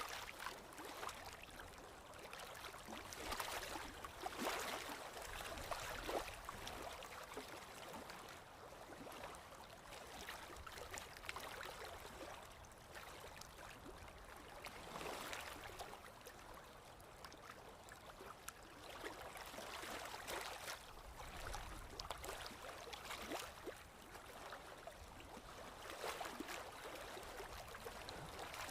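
Flowing water splashing and gurgling, a continuous wash with many small irregular splashes and swells that rise and fall every few seconds.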